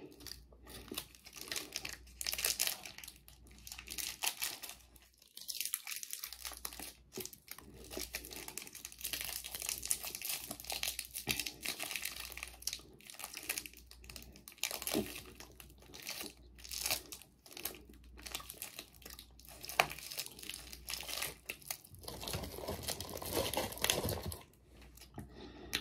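Plastic wrapper of a caramel stick candy crinkling and tearing as it is unwrapped and handled, in irregular crackles.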